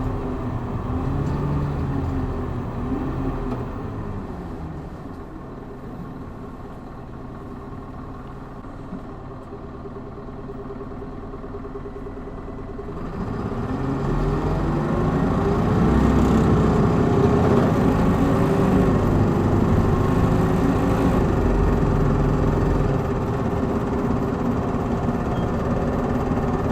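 Hino Blue Ribbon city bus engine heard from inside the bus. It eases off and drops to a quiet idle for several seconds. About halfway through it pulls away hard, the engine pitch climbing as it accelerates, then runs on loud and steady.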